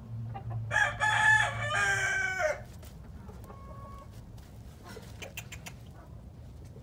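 A gamefowl rooster crows once, a call of about two seconds starting about a second in. Faint scratches and a brief soft call follow.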